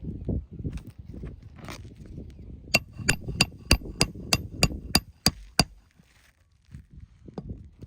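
Hammer striking a nail on an asphalt shingle roof: a quick run of about ten ringing blows, roughly three a second, starting a few seconds in and stopping abruptly, after light scraping and knocking of shingle handling.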